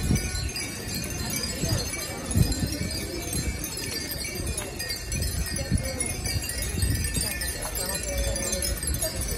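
Furin (Japanese summer wind chimes) tinkling over the chatter of a crowd, with background music.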